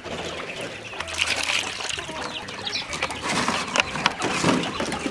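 Water and small fish being tipped out of plastic-bottle fish traps into a metal basin of water, splashing and trickling, with the splashing busier in the second half.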